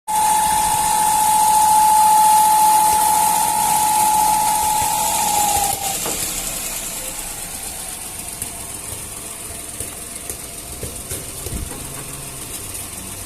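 Fiat Uno Firefly three-cylinder engine running with a steady high whistle, the sign of a torn valve-cover breather diaphragm. The whistle sags slightly in pitch and stops about six seconds in, and the engine keeps running more quietly.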